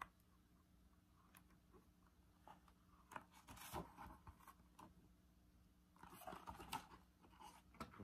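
Near silence: faint room tone with a low steady hum, and a few soft taps and rustles of a hardback picture book being handled, mostly in the middle and again after about six seconds.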